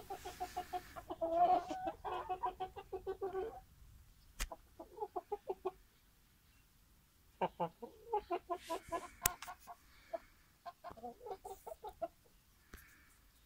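Shamo chickens clucking in quick runs of short, evenly spaced notes: a long bout at the start, a short one around the middle and another long one in the second half. Two sharp clicks cut in, one a little before the middle and one in the second half.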